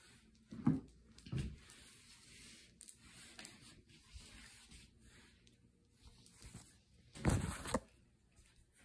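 Handling noise from a phone being moved about: two dull bumps about a second in, faint rubbing, and a louder brushing rub near the end.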